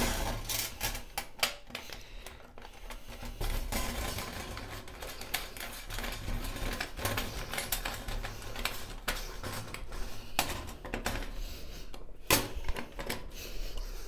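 Irregular small metal clicks and clinks of bolts, washers and a hand screwdriver against a perforated steel cable tray as it is fixed down by hand.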